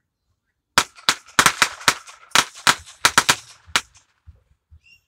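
A string of firecrackers going off: about a dozen sharp, unevenly spaced bangs over some three seconds, then a few faint thuds.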